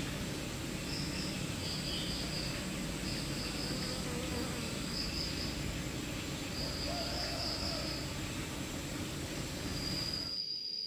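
Tropical countryside ambience: insects chirp in short high trills, about one every second, over a steady low rumble. Shortly before the end the rumble cuts off abruptly and a continuous high insect trill takes over.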